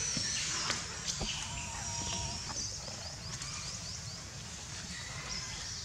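Outdoor ambience of high-pitched animal chirps and thin whistles, some gliding and some in quick runs, over a steady low rumble, with a few sharp clicks.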